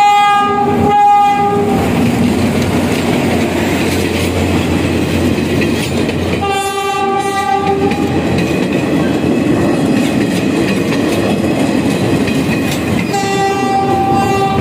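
Old Philippine National Railways train passing close by, its wheels rumbling and clattering on the track, with the horn blown in several blasts of one to two seconds: at the start, about a second in, around seven seconds in and again near the end.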